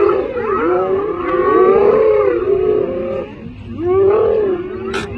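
A clan of spotted hyenas calling all at once: many overlapping cries that rise and fall in pitch, easing briefly about three seconds in, with a sharp click near the end.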